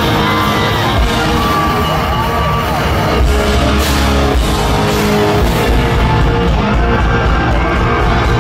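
Live rock band playing loud in an arena, heard from the crowd: a lead electric guitar holds and bends long sustained notes over bass and drums.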